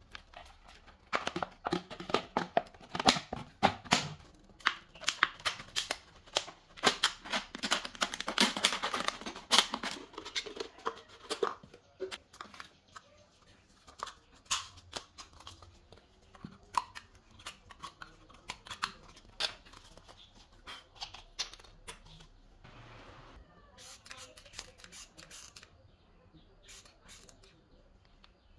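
Thin plastic drink bottles being cut and handled: a run of sharp crackles, snips and clicks of the plastic, thickest in the first third, then sparser clicks and taps.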